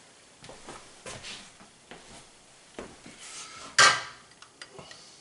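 Diced vegetables being scraped out of a small glass bowl into a frying pan with a silicone spatula: light taps and scrapes, and one sharp ringing clink of glass against the pan about four seconds in.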